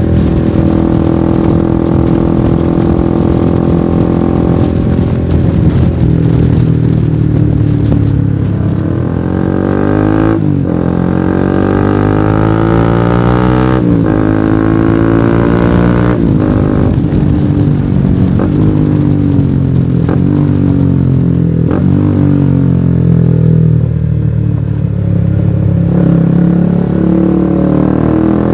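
Honda CBR150R's single-cylinder engine through an aftermarket exhaust, pulling through the gears while riding. Its pitch climbs and drops sharply at each upshift, several times in a row. Then it falls away as the bike slows and picks up again near the end.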